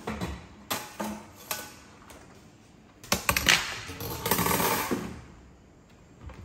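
Irregular metallic clattering and rattling of a wire mesh basket knocked about on a glass tabletop, loudest about three seconds in and again around four and a half seconds, with a few lighter knocks in the first second and a half.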